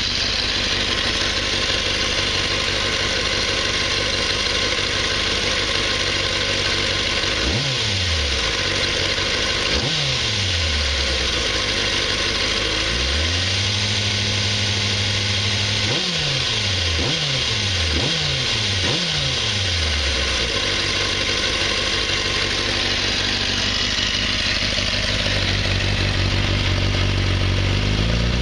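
1994 Kawasaki ZXR 400's 398 cc inline-four engine running at idle, with the throttle blipped several times. Single revs rise and fall back about eight and ten seconds in, one rev is held for a few seconds around the middle, then comes a quick run of about five blips.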